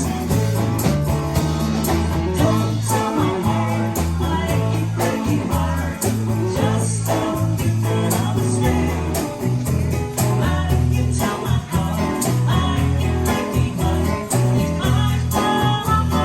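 Music with singing and guitar and a steady beat.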